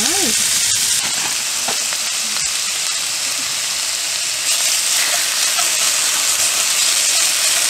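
Grated potato sizzling in hot oil in a frying pan, stirred about with a spatula. The sizzle steps up a little about four and a half seconds in.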